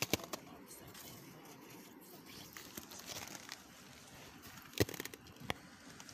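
Slushy ice and snow crunching and crackling in an ice-fishing hole as an arm in a jacket sleeve pushes down into it. There are sharp clicks right at the start and two louder ones near the end.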